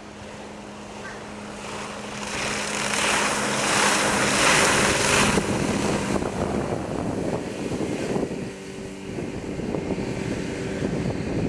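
A small deck boat's outboard motor running under way, with water rushing along the hull and wind on the microphone. The rushing swells loudest between about two and five seconds in, then eases, and a steady engine hum comes back through in the second half.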